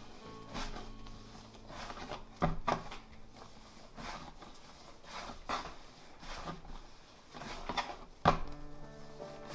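A few irregular dull knocks and thuds with soft rubbing between them, from bread-making work in a small room: two sharper knocks about two and a half seconds in and a loudest one near the end. Faint background music runs underneath.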